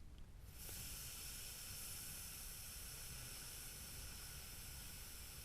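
A long, steady "fff" exhale: breath forced out between the upper teeth and lower lip. It starts about half a second in after a short pause, as a slow, drawn-out breathwork exhale.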